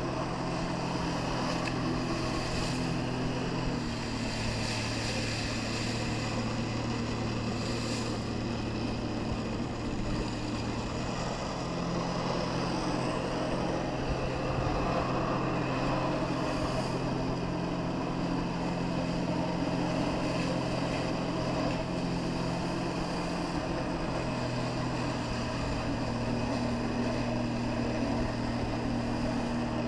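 Personal watercraft engine running steadily while it drives a flyboard through the feed hose. Its pitch steps up and down a few times as the throttle changes.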